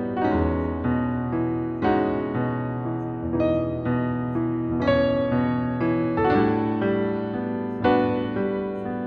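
Background music: slow, gentle piano playing chords and single notes, a new note struck about every second.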